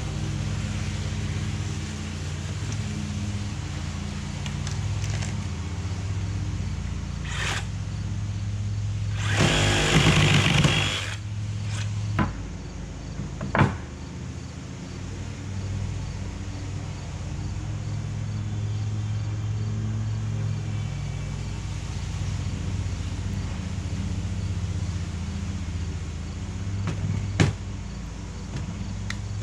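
Wall-framing work over a steady motor hum: a few sharp knocks and, about nine seconds in, a loud burst of noise lasting about a second and a half.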